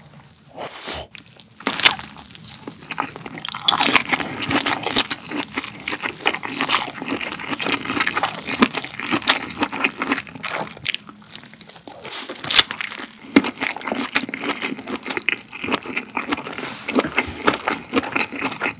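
Biting into and chewing a tomato pasta hotdog: a sausage in a bun topped with spaghetti and tomato sauce. Steady chewing with many small crackling clicks and a few sharper strokes.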